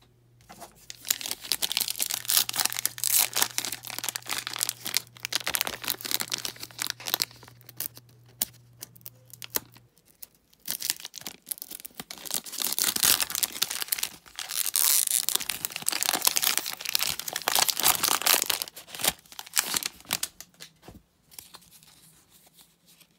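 Wrapper of a football trading-card pack being torn open and crinkled by hand, in two long spells of ripping and rustling, the second starting about halfway through.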